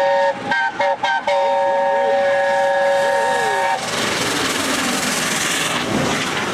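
Steam locomotive 60163 Tornado's whistle sounding a three-note chord. It is broken into a few short toots about a second in, then held in a long blast until nearly four seconds in. The locomotive then passes close by with a loud rush of steam and exhaust.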